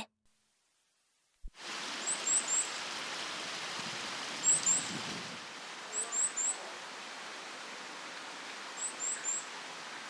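Varied tit giving short, very high, thin call notes, mostly in quick runs of three, repeated every couple of seconds over a steady outdoor hiss; the calls begin after a moment of silence. The narration takes these calls for a bird looking for its flockmates.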